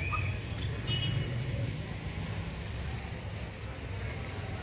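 A few brief, high-pitched animal squeaks and chirps over a steady low outdoor rumble. One falling chirp comes a little over three seconds in.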